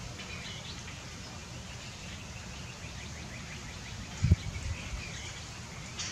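Faint chirps and short notes of small songbirds, with a quick run of repeated chirps about halfway through, over a steady low outdoor rumble. A dull low thump about two-thirds of the way through is the loudest sound, followed by two softer ones.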